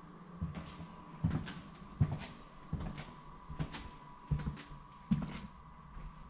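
Footsteps of a person walking at an even pace, a dull thump about every three-quarters of a second, with a faint steady high hum underneath.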